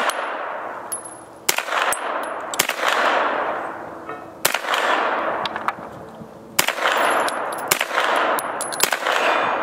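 Single shots from a 9mm AR-15 pistol, about six of them spaced a second or two apart, each followed by a long rolling echo. Faint metallic pings of bullets striking steel targets sound after some of the shots.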